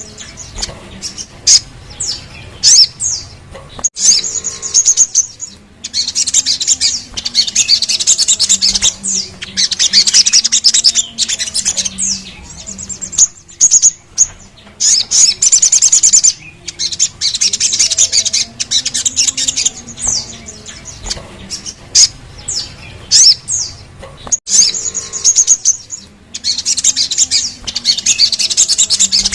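Sogon (sogok ontong, little spiderhunter) song: bouts of rapid, high-pitched chattering trills lasting a second or two, repeated again and again with short gaps. A faint low wavering tone runs beneath them.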